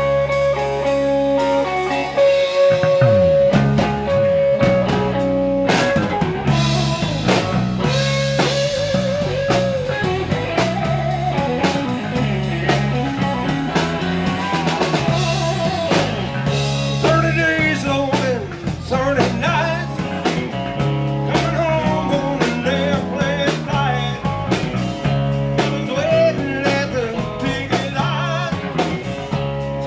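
Live blues-rock band playing an instrumental passage: electric guitar lines that bend in pitch over a repeating bass guitar figure and a steady drum kit beat.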